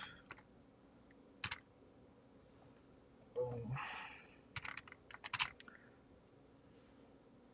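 Typing on a computer keyboard: a lone keystroke about a second and a half in, then a quick run of keystrokes from about three and a half to five and a half seconds in.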